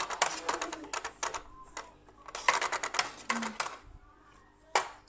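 A utensil clinking and scraping against a stainless-steel baking pan as sliced potatoes in cream are stirred. The clicks come in quick runs with short pauses between them.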